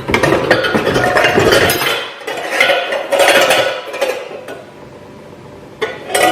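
Kitchen pots, pans and utensils clattering and clinking, busiest for the first four seconds, then a single knock near the end.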